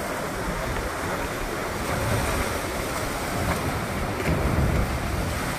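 Rough, choppy surf breaking against granite rocks, with strong wind buffeting the microphone as a low rumble. The wash swells a little about two seconds in and again near the end.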